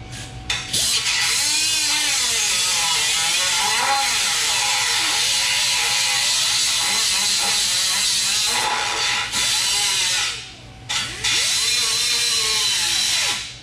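A power cutting tool runs steadily, cutting through a steel truck frame. It starts about a second in, stops briefly about three-quarters of the way through, then resumes and stops just before the end.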